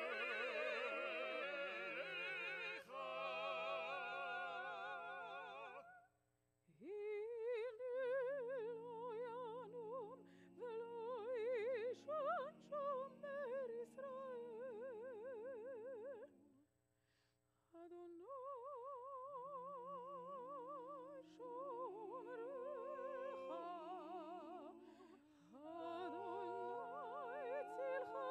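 Sung music with strong vibrato in the upper voice over held lower notes. It breaks off twice for a moment, about six seconds in and again about seventeen seconds in.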